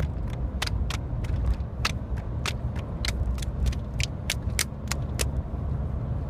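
Steady low rumble with many sharp clicks, a few a second and unevenly spaced.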